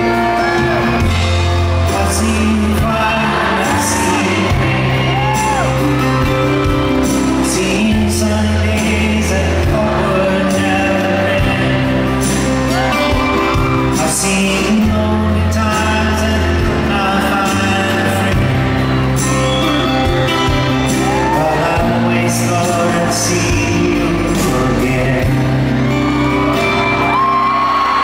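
Two acoustic guitars strummed and picked with singing, a live duet performance in a large arena.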